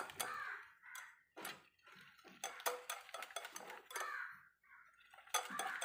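Wire whisk beating eggs and sugar in a bowl: irregular light clicks of the whisk against the bowl, with short soft swishes of the liquid.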